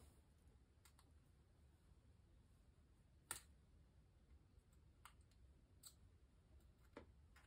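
Faint, sparse metallic clicks, five or so, the loudest about three seconds in, as a feeler gauge blade is worked between a pair of connecting rods on the crankshaft to check rod side clearance.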